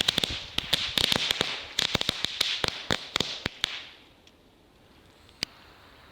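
A batch of NICO Lady Cracker miniature firecrackers going off in a rapid, irregular string of sharp pops that thins out after about three and a half seconds, with one last pop near the end.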